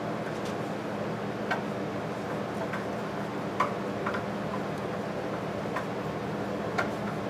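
Sharp metal clicks of an open-end wrench and screwdriver against the carburetor mounting nut, about six of them at uneven intervals, over a steady low background hum.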